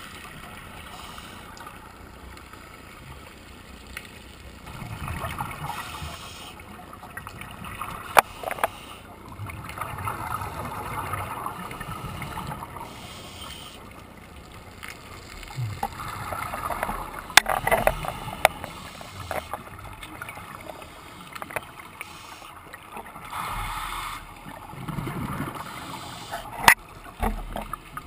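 Underwater sound of a scuba diver breathing through a regulator: a hiss on each breath in and a bubbling gurgle on each breath out, repeating every few seconds, with a few sharp clicks.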